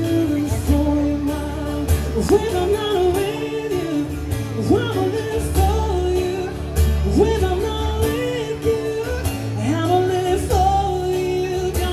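A man singing live with amplified guitar, long held notes with a swoop up into a new note every two or three seconds over a steady low accompaniment.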